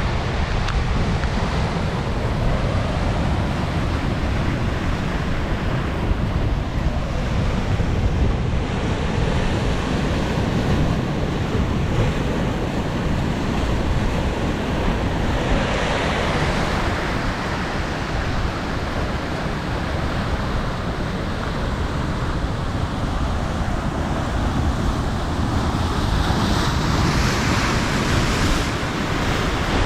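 Steady rush of sea waves and wind, with wind buffeting the microphone as a low rumble. The hiss swells louder about halfway through and again near the end.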